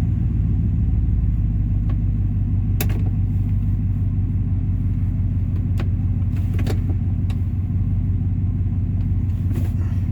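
2001 Ford F-150's engine idling steadily, with a few sharp clicks as the shifter is moved through the gears to test the newly replaced neutral safety switch.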